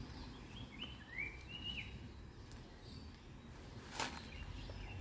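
Faint outdoor background noise with a few short, faint whistled bird chirps about a second in, each rising and then holding, and a single soft tap about four seconds in.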